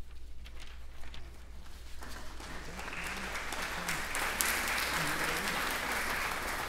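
Audience applauding: a few scattered claps at first, swelling into full applause about two seconds in, then dying away near the end.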